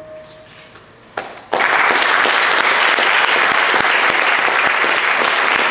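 The music's last held note fades away, and about a second and a half in the audience breaks into loud applause that keeps going.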